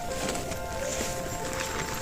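Background music with long held notes, over faint clicking.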